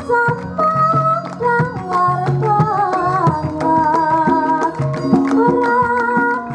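Javanese gamelan ensemble playing a piece with held metallic tones and drum strokes, while a female voice sings a wavering melody line over it.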